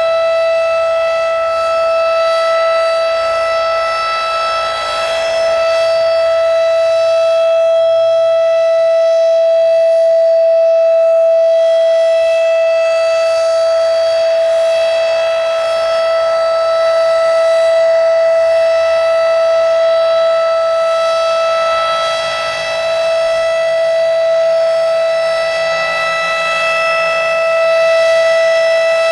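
Federal Signal Thunderbeam RSH-10 electromechanical warning siren sounding its steady alert signal: one loud held pitch with strong overtones that does not rise or fall.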